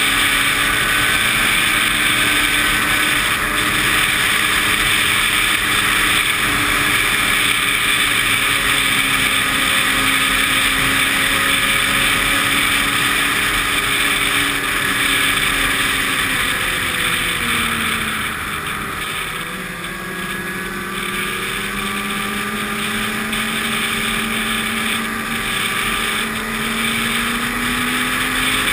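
Snowmobile engine running at speed along a trail, with steady track and wind noise. About two-thirds of the way through its pitch drops as it slows, then climbs back up as it speeds up again.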